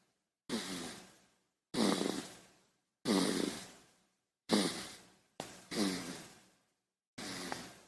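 A baby snoring: about six short breaths with a low rattle and hiss, each starting suddenly and fading out, roughly one a second, with silence between.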